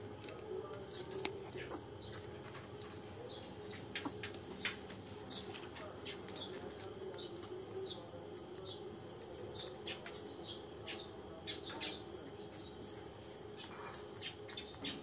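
Small birds chirping in many short calls over a steady high insect buzz, with scattered sharp clicks.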